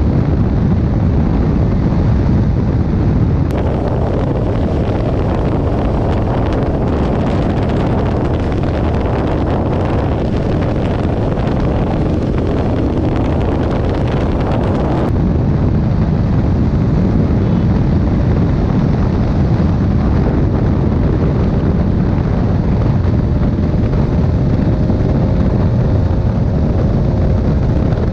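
Heavy wind rush on the microphone over a single-cylinder sport motorcycle engine running steadily near top speed, about 145–159 km/h. The sound switches from the Bajaj Pulsar RS 200 to the KTM Duke 250 a few seconds in and back about halfway through.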